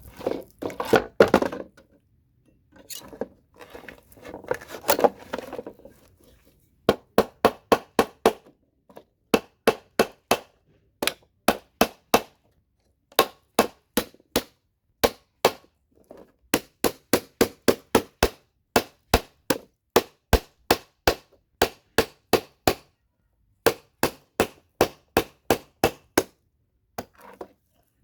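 Rapid hammer blows knocking CPU sockets off a scrap motherboard, in short runs of several sharp strikes about four a second with brief pauses between. Before them come a few seconds of scraping and handling of the board.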